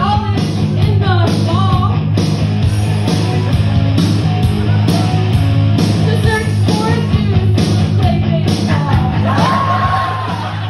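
A woman singing into a microphone over loud backing music with a steady beat.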